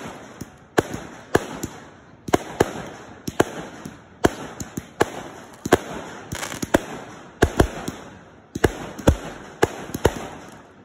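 Aerial fireworks firing in rapid succession: a string of sharp bangs about two a second, many in close pairs, with a couple of deeper booms past the middle.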